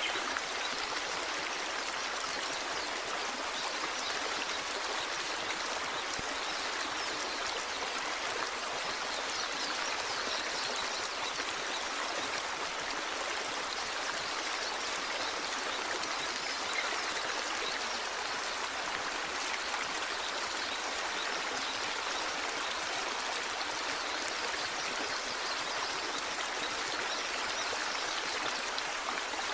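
Small waterfall running in a steady, even rush of water that never changes or breaks.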